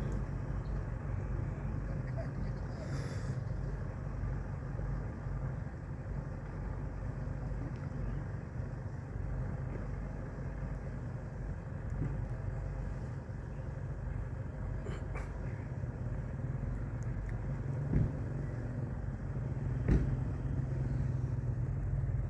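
A boat's engine running steadily with a low hum, with two sharp knocks near the end, the second the louder.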